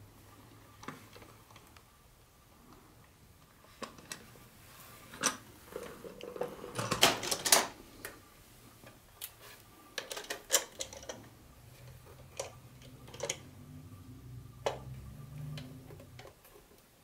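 Plastic cars of a Lionel battery-powered toy train set being handled and set in and out of their packaging tray: scattered light clicks and knocks of plastic on plastic, with a cluster of louder knocks about seven seconds in.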